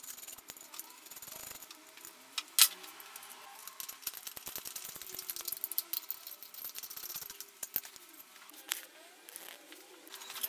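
Small metal clicks and rattles of bolts, washers and a hand tool as a front mudguard is fitted and fastened to a motorcycle fork. One sharp click stands out about two and a half seconds in.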